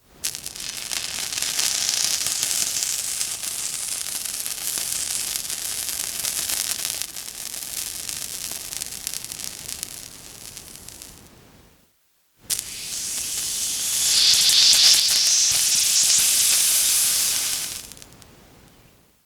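Water sizzling, in two long hissing runs. The first fades out over about eleven seconds. After a brief silent gap, the second comes in louder, swells in the middle and dies away near the end.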